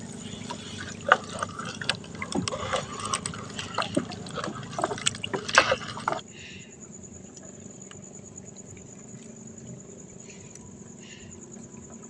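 Water splashing and dripping as a wet trammel net is hauled up over a boat's side by hand, with many irregular splashes for about six seconds. Then it goes quiet but for a faint steady hiss and a thin high-pitched trill.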